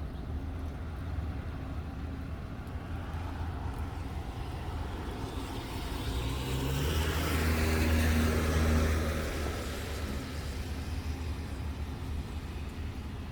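A motor vehicle passing by: its engine and tyre noise swell from about five seconds in, are loudest around eight seconds, then fade away, over a steady low rumble.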